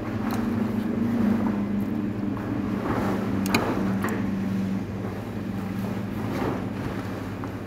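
A steady low machine hum, like an engine running, with a couple of sharp clinks about halfway through as a metal spoon meets the plate.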